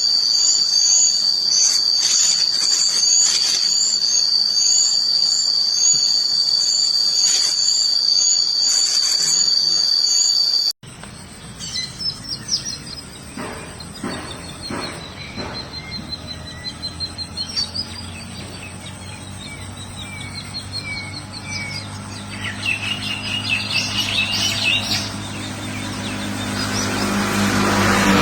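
A steady, high insect-like trill with rapid repeated chirps over it, cut off abruptly about eleven seconds in. After that come scattered high chirps and calls of small birds, with a low rumbling noise building up near the end.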